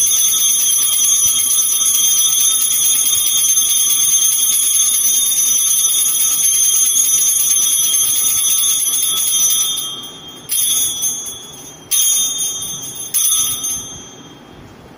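Altar bells shaken in a continuous ringing for about ten seconds while the chalice is elevated at the consecration, then rung in three short bursts.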